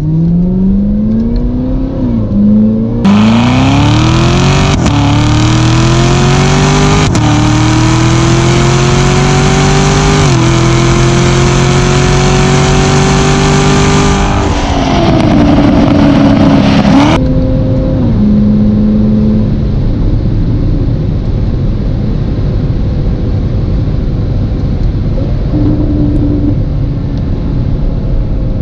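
2019 Corvette ZR1's supercharged 6.2-litre LT5 V8 under hard acceleration, climbing in pitch through four quick upshifts, each a sudden drop in revs. About halfway through the throttle comes off, the revs fall away, and the engine settles into a steady low drone while cruising.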